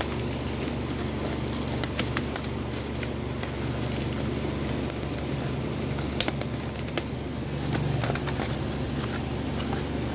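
Steady low background hum like a fan, with scattered sharp clicks and light crackles as a loudspeaker cone is handled and lifted off its frame.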